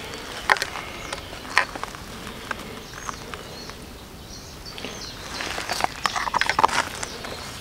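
Scattered small clicks and rustles of hands handling fishing tackle and bait while baiting a feeder hook, busiest about six seconds in, over steady open-air background noise with faint bird chirps.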